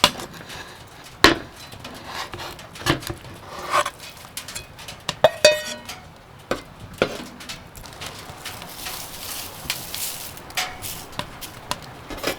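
Irregular knocks and clatter of utensils on a wooden cutting board during camp cooking prep, with a short ringing clink about five seconds in.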